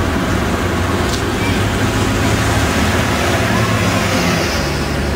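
Diesel engines of city buses running as the buses pull past at close range, with traffic noise and tyres hissing on the wet road. The sound stays at a steady level.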